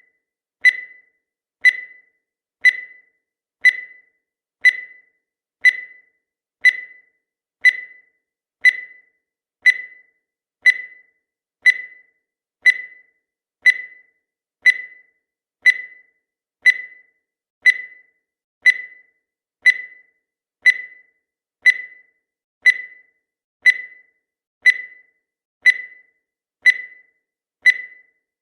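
Countdown timer sound effect: a short, high beep that fades quickly, repeating evenly once a second to mark each second.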